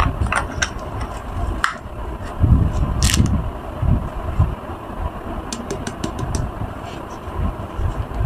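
Uneven low rumble with scattered small clicks and taps.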